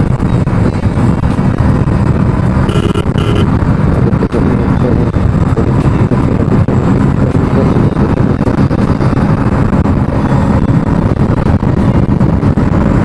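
Hero Splendor Plus's single-cylinder four-stroke engine running hard at full throttle at highway speed, a steady drone with road noise. Two short high beeps sound about three seconds in.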